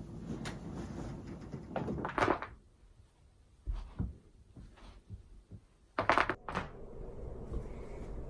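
Spinal joints cracking during a hands-on back adjustment: a quick run of sharp pops about two seconds in, a few soft thumps, then a louder cluster of cracks about six seconds in.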